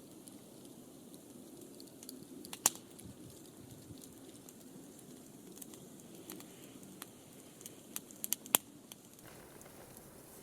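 Wood campfire crackling faintly, with a sharp pop about two and a half seconds in and a quick run of pops near the end.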